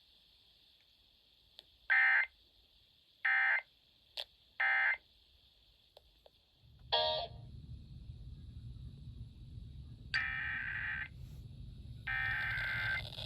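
Emergency Alert System digital data bursts (SAME code): three short, buzzy, modem-like chirps a little over a second apart, the end-of-message signal that closes a required monthly test. After a brief tone and a low hum starting about 7 s in, two longer bursts of the same kind begin the header of the next test alert.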